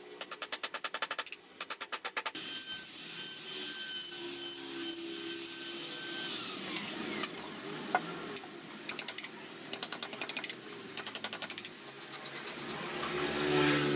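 Rapid clicking of a carving chisel cutting into wood, then a small handheld electric rotary tool running with a steady high whine that winds down about six to seven seconds in. Bursts of clicking chisel cuts follow, with a rising hum near the end.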